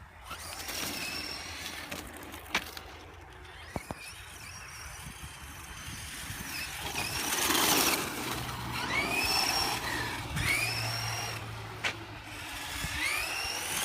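Electric motor of an ECX radio-controlled car whining as it speeds up and slows down, its pitch rising and falling several times, with a louder rush of noise about seven to eight seconds in.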